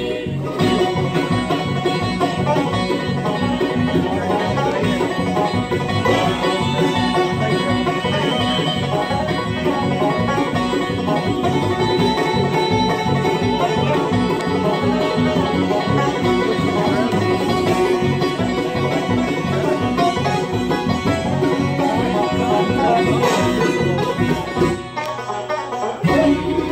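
Live bluegrass band playing without vocals: banjo, mandolin, resonator guitar and acoustic guitar together. The band drops out briefly about 25 seconds in, then comes back in.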